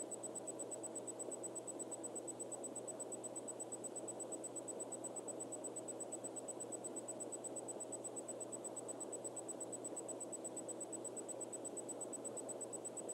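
Steady background hiss and hum with a faint high-pitched whine: room tone with no distinct sound.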